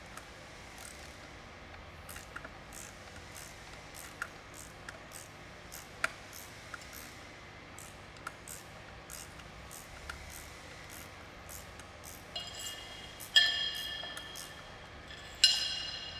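Hand-tool work on engine bracket bolts: scattered light metallic clicks of a wrench or ratchet. Near the end come two loud ringing clinks of metal tools or parts, about two seconds apart.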